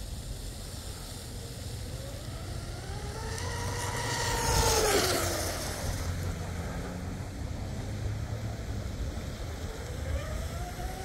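RC catamaran speed boat with a brushless motor running flat out: its high whine rises as it approaches, peaks with a hiss of spray about five seconds in, and drops sharply in pitch as it passes and runs away. Near the end the whine builds again as the boat comes round for another pass.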